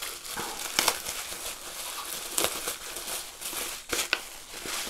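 Clear plastic wrapping crinkling and rustling as a foam wing is unwrapped and pulled out of it, in irregular sharp crackles.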